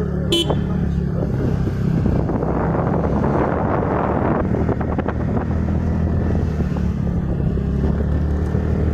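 Motorcycle engine running steadily while being ridden. A rushing noise swells over it for about two seconds a couple of seconds in, then cuts off suddenly.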